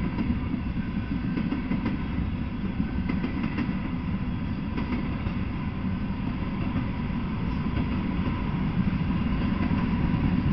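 Freight train cars (a tank car, then covered hoppers) rolling past at speed: a steady rumble of steel wheels on the rails with faint, scattered clicks, swelling slightly near the end.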